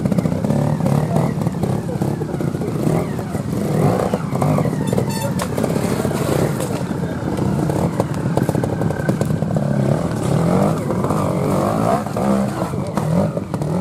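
Trials motorcycle engine running as the bike climbs over rocks, its pitch and loudness rising and falling with short throttle bursts.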